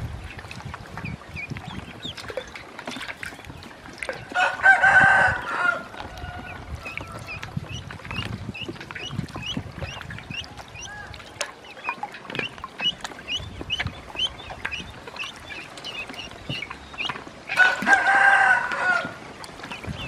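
Ducklings peeping in quick, high chirps while they swim in a shallow bowl of water. A rooster crows twice over them, once about four seconds in and again near the end; each crow is a drawn-out call of about a second and a half and is the loudest sound.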